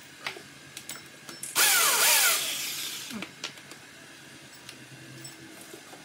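A power drill runs in one short burst of just under a second, its pitch gliding as it winds down over about another second. A few light clicks and taps come before and after it.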